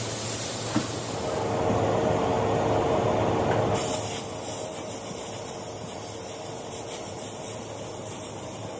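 Handheld angle grinder with an abrasive disc running against a truck tyre casing, buffing the rubber for retreading, with a steady whine. About four seconds in it gives way to the steady hiss of a compressed-air blow gun.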